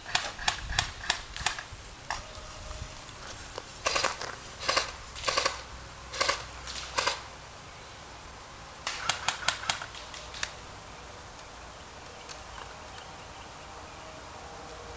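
Airsoft guns firing in short strings of sharp pops: several shots in the first second and a half, another string from about four to seven seconds in, and a quick burst of about six shots around nine to ten seconds.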